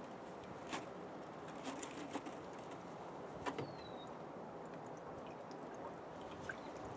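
Quiet steady background hiss with a few faint clicks and knocks as the plastic filter manifold is handled, and one short falling chirp about three and a half seconds in.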